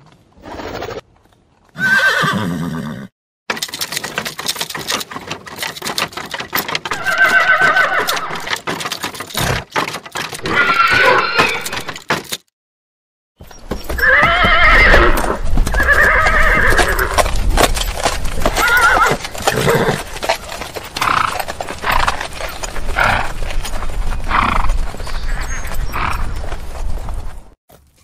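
A string of separate horse recordings, split by short silences: horses neighing and whinnying, with hooves clip-clopping under and between the calls. The longest, loudest whinnies come near the middle, followed by a run of shorter neighs.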